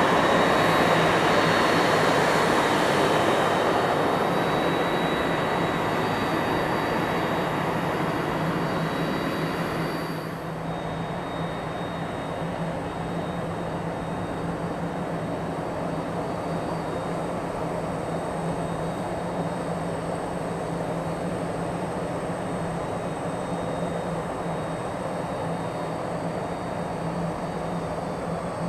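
Boeing 767-300ER jet engines running, a steady rushing noise with a high fan whine and a low hum. It is loudest at first and fades, drops abruptly about ten seconds in, then holds at a steady lower level.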